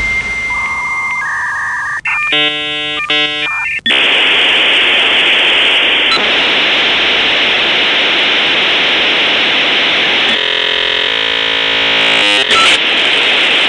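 Dial-up modem handshake: a steady high tone, a short run of stacked electronic tones about two seconds in, then a long band of hiss from about four seconds, with a buzzy layer of tones under it near the end.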